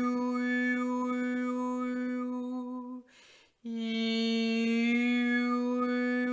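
A single voice toning one long held note, its vowel slowly shifting so that different overtones ring out above it. About three seconds in it breaks off for a quick breath, then takes up the same note again.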